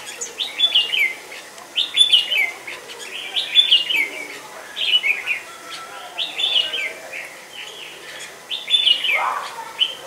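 A songbird repeating short, clear warbled phrases about once a second, each jumping up and falling back in pitch.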